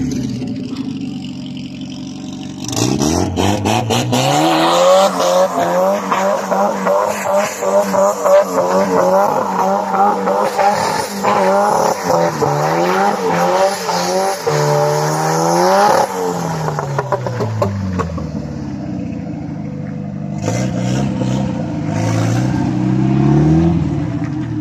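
Car engine revved hard: it climbs about three seconds in and is held at high revs with the pitch wavering up and down for over ten seconds. It then drops back to idle and is revved again near the end, with a few sharp cracks as it picks up.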